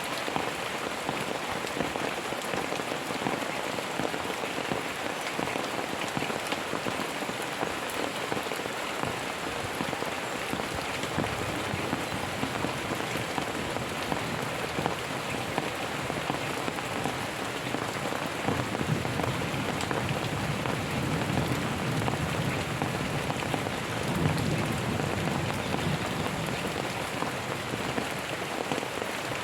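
Steady rain falling, with a low rumble of thunder that swells through the middle of the stretch.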